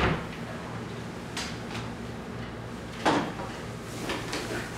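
A wooden cupboard door knocking and thudding as it is moved and shut, with one louder thud about three seconds in, over a low steady hum.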